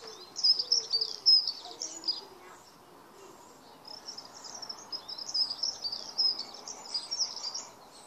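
Small songbird singing fast, high chirping and warbling phrases in two long bouts, one at the start and one from about halfway to near the end, with a short lull between.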